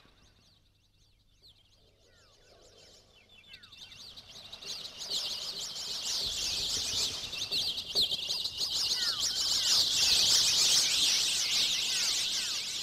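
Many birds chirping and twittering, a dense high chatter that swells louder from about four seconds in, with a few falling whistled calls.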